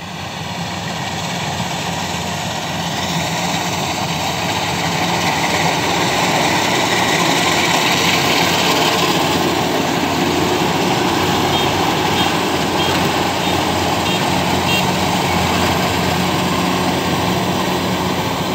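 Kubota DC-93 combine harvester running while it harvests rice: a steady engine-and-machinery din that grows louder over the first several seconds as the machine comes close, then holds steady.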